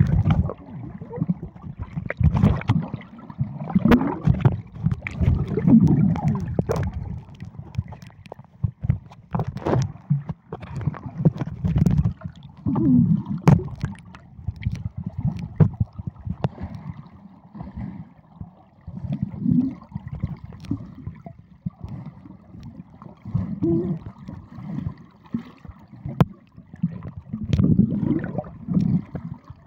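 Underwater recording of moving seawater: muffled low rumbling swells that come and go irregularly, with gurgling and many small scattered clicks.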